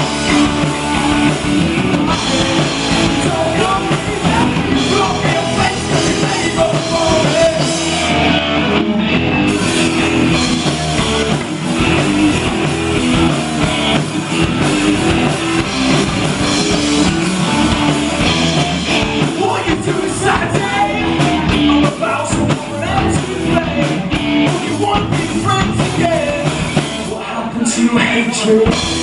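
A rock band playing loud live music with a drum kit.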